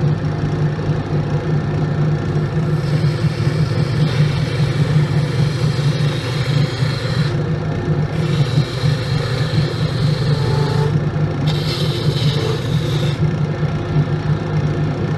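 Wood lathe motor running with a steady low hum while a turning gouge cuts the spinning wood, a hissing shaving sound that comes in passes of a few seconds with short breaks between, about three times.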